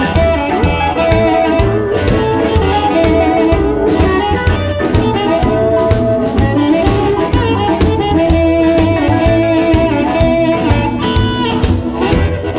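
Electric blues band playing: electric guitar over a drum kit keeping a steady beat, with long held notes on top. The cymbals drop out near the end.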